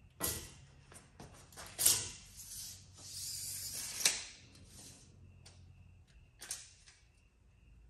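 Steel tape measure handled on a steel tube frame: a few sharp clicks and knocks, then about a second of rattling whir as the blade retracts into its case, ending in a loud snap. A couple more clicks follow as the blade is pulled out again.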